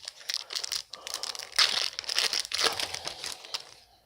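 A trading card pack's wrapper being torn open and crumpled in the hands: a rapid run of crinkling, crackling rustles, loudest in the middle and fading out near the end.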